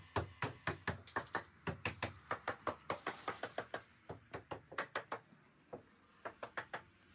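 A hammer striking the timber wall framing in quick, regular blows, about four a second, each with a short ring. The blows pause for about a second near the end, then a few more follow.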